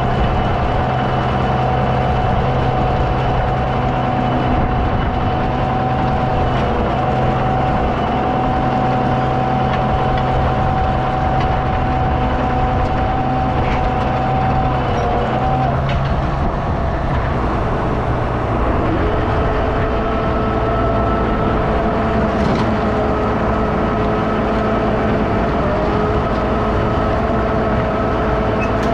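Red feed mixer wagon running as it unloads feed out of its side discharge chute into a feed bunk: a steady machine drone with whining tones that change pitch about halfway through.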